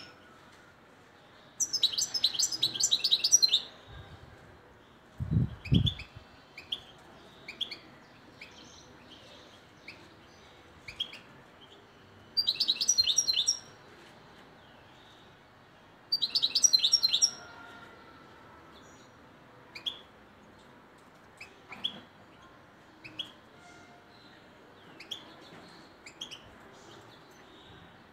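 Caged European goldfinch (chardonneret) singing: three short phrases of rapid high twittering, the first about two seconds long and the others just over a second, with scattered single chirps between them, a passage of the song style Moroccan keepers call wadani. A short low thud about five seconds in.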